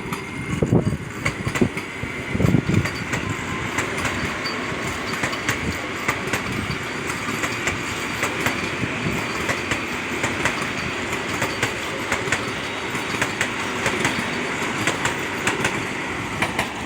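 Vande Bharat Express train running past at speed, its wheels clicking rapidly over the rail joints over a steady rush of noise, with a few low thumps in the first three seconds.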